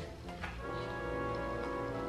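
Soft background music: a chord of steady held tones that comes in about half a second in.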